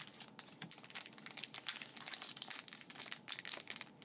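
Foil booster-pack wrapper crinkling as it is handled: a dense, irregular run of sharp crackles.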